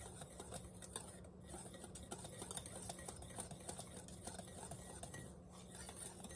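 Wire whisk stirring and scraping around a stainless steel bowl of dry flour mix, giving a continuous rapid run of small metallic scratches and clinks.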